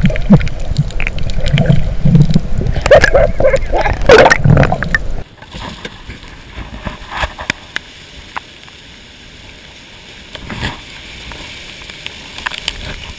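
Loud underwater gurgling and sloshing of water against the camera, surging irregularly for about five seconds. It then cuts off abruptly to a much quieter steady hiss with a few scattered light knocks.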